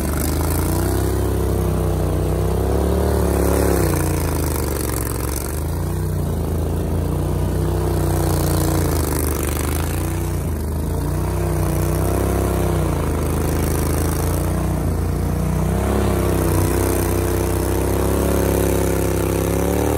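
Gator-Tail GTR XD surface-drive mud motor running hard, its pitch rising and falling every couple of seconds as the throttle works it through thick mud and vegetation.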